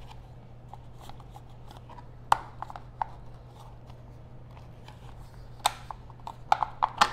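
Sharp plastic clicks and knocks as Can-Am Ryker passenger seat and backrest parts are handled and pushed against their rear mount: a couple of clicks a few seconds in and a quick cluster near the end. A steady low hum runs underneath.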